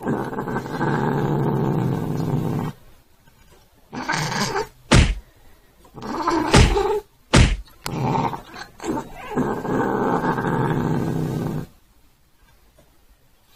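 Domestic cat growling at a hand waved in its face: a long, low, steady growl at the start and another from about 8 s to near the end, with shorter growls between, the sign of an irritated cat warning the hand away. Three sharp thumps fall in the middle, as the cat raises a paw to swat.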